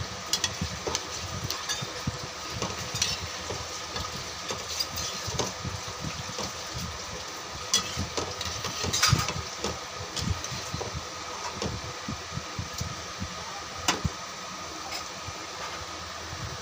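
A spatula stirring thick chicken and potato curry in a frying pan, with scattered clicks and knocks against the pan over a steady background hum. The sharpest knocks come about nine and fourteen seconds in.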